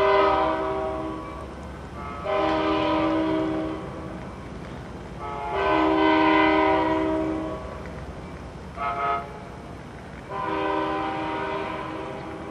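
Amtrak Pacific Surfliner train's air horn sounding five blasts as it approaches: three long ones, a short one, then a final long one. The last four match the long-long-short-long signal sounded for a grade crossing.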